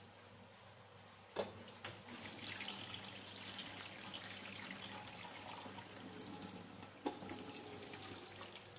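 Cooking water and boiled rice poured from a pressure cooker into a perforated steel colander, the water splashing and draining steadily through it: the starchy water being drained off the rice. A sharp knock about a second and a half in, as the pouring starts, and another near seven seconds.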